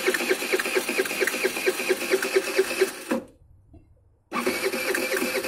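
Electric starter of a Racer Corvus 50 moped cranking the engine with a fast, even pulsing, and the engine does not catch. The cranking stops about three seconds in and starts again after a pause of about a second.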